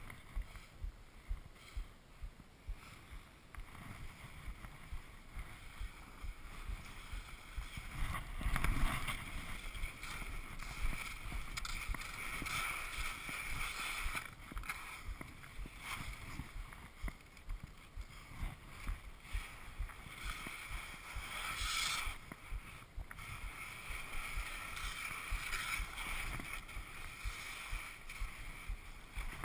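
Skis scraping and hissing on steep snow in quick, repeated turns, about one a second, with wind on the microphone. There is a louder, deeper rush of snow about nine seconds in.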